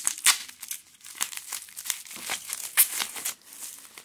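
Bubble wrap being pulled open and crumpled by hand to free a small stone carving: quick, irregular crinkling and crackling.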